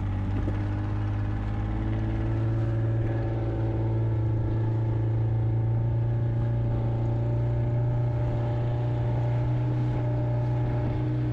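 A fishing boat's engine running steadily under way, a low even drone whose pitch rises slightly over the first few seconds.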